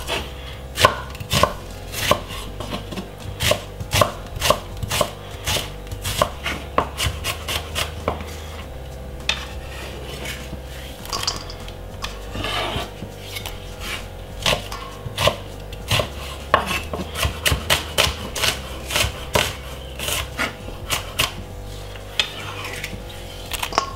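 Chef's knife chopping a white onion on a wooden cutting board: sharp knocks of the blade on the board in quick runs, with short pauses between them.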